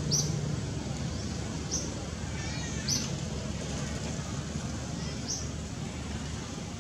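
Outdoor ambience: a steady low rumble with short, high chirps that fall in pitch, heard four times, about one to two seconds apart.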